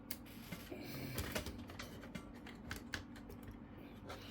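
Light plastic clicks and taps of laptop parts being handled and fitted back into the chassis, irregular and short, over a faint steady low hum.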